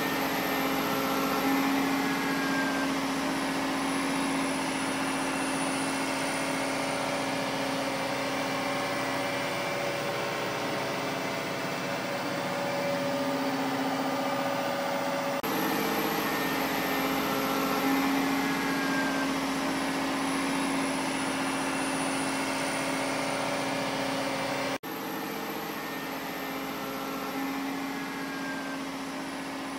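Heavy vehicle engine sound effect running steadily at idle, with a faint high falling whine. The recording is looped, starting over abruptly about 15 s and 25 s in.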